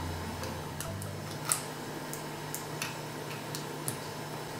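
Small tool clicks: tweezers and a plastic pry tool tapping against a smartphone's frame while a small circuit board is pressed into its seat. There are a handful of sharp ticks, the loudest about a second and a half in, over a faint steady hum.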